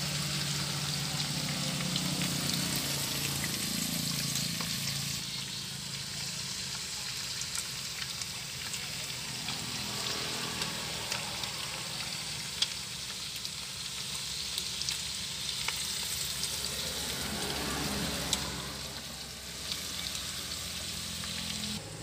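Beef steak slices and onion rings sizzling in a frying pan: a steady hiss with scattered sharp pops and crackles.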